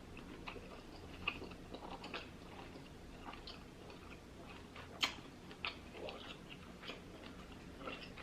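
A person chewing lobster tail meat in buttery sauce close to the microphone: faint, scattered wet mouth clicks and smacks, with one sharper click about five seconds in.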